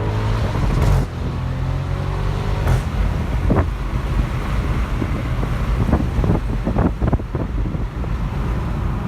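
Audi RS6 engine running loud through a Milltek sport exhaust, a deep steady rumble, with a string of sharp cracks about halfway through.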